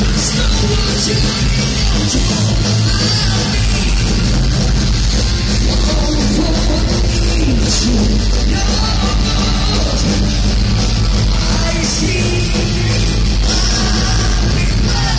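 A heavy metal band playing loud and live, with the lead singer singing over electric guitars and drums. Heard from within the audience.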